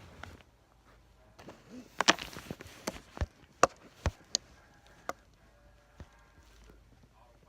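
A quick series of sharp knocks and clicks, the loudest bunched together about two to four seconds in, then a few fainter ones.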